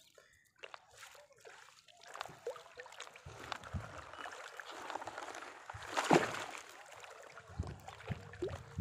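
Water dripping, trickling and splashing as a wet monofilament fishing net is hauled by hand out of the water into a small boat, with a louder splash about six seconds in.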